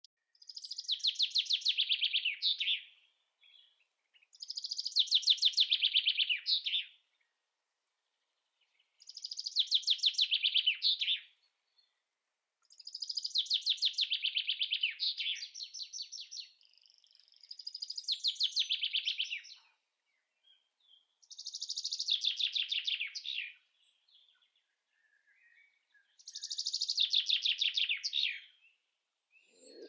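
A songbird singing the same short song over and over, seven times, about every four seconds. Each song is a fast run of notes that falls in pitch.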